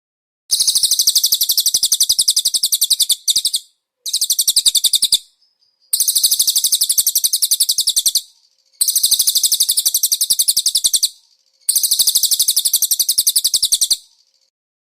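A cililin songbird singing five fast, high-pitched rattling trills of two to three seconds each, with short pauses between them.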